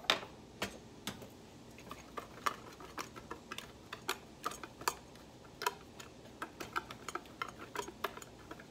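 Metal wire whisk stirring a dry mix of almond flour, grated Parmesan and garlic powder in a bowl, its wires clicking against the bowl's side in a quick, irregular run of ticks. A louder knock comes right at the start.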